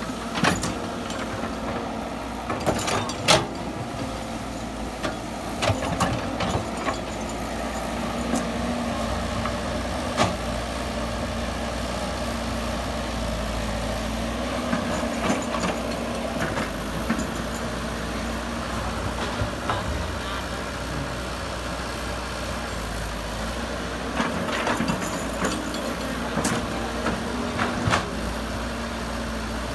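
Excavator engine running steadily, with several sharp knocks and clanks scattered through, the loudest a few seconds in.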